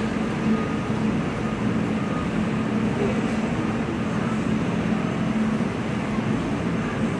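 Steady low rumble of vehicle noise with a constant low hum.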